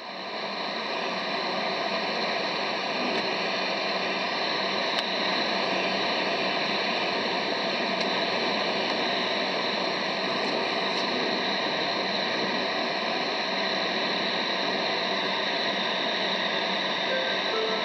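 Steady rushing road and running noise of a bus-and-trailer combination, heard from inside the passenger trailer, with no distinct events.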